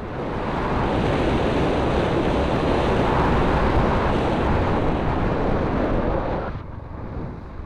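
Wind rushing over the microphone of a camera on a vehicle moving along a road: a steady, loud hiss of noise that drops off suddenly about six and a half seconds in.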